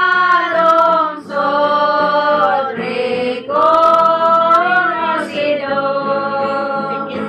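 Several women singing a song together in long held phrases, with two brief breaks between lines.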